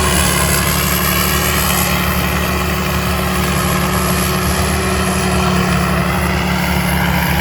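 TAMCO combine harvester with its 6HK six-cylinder diesel engine running steadily under load while harvesting rice, the engine and threshing machinery droning at an even pitch with a thin, steady high whine over it.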